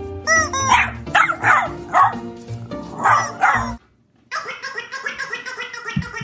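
A dog barking in short high yips, about six times, over background music; the sound drops out briefly a little under four seconds in, then the music carries on.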